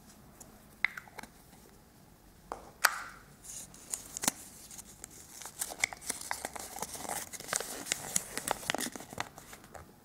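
A small folded paper leaflet unfolded by hand, crinkling and rustling. A few taps come first, then dense crinkling from about three seconds in until near the end.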